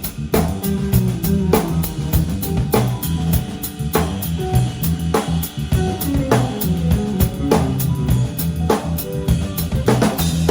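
A band plays a steady groove on drum kit, bass and guitar, with the bass notes held low under the drums and a strong accent falling about every second.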